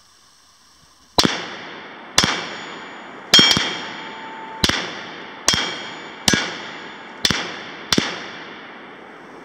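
Nine rifle shots from a 7.62x39 AK-pattern rifle fired semi-automatically at roughly one per second, two of them in quick succession about three seconds in, each echoing off the surroundings. A short thin ringing follows a few of the shots.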